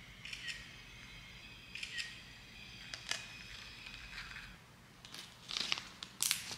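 Small handling noises of a phone and objects at a desk: a few sharp clicks and rustles, loudest near the end.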